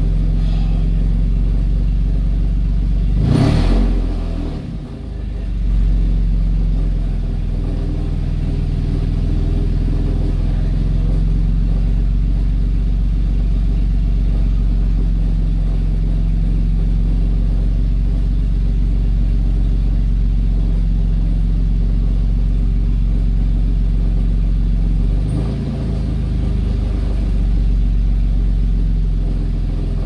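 2009 Toyota Camry's 3.5 L V6 running with a steady low drone. Its speed rises and falls briefly about 3.5 s in and again near 25 s in. The engine has no power and logs only a few misfires, which the mechanic puts down to diesel in the fuel tank.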